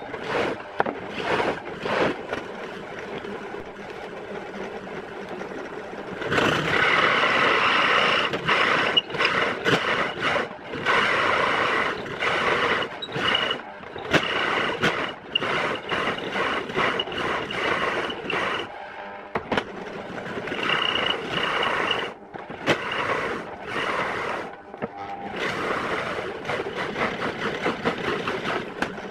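Drill press spinning an adjustable circle cutter that scrapes a round hole into a fibreboard panel, a rough, grinding cutting noise. It gets louder and harsher about six seconds in and drops out briefly a couple of times later on.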